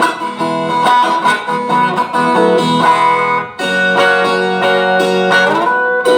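Rossini viola caipira, the ten-string Brazilian folk guitar, tuned in cebolão E major and played through a small amplifier: quick runs of plucked notes, a short break about three and a half seconds in, then ringing chords.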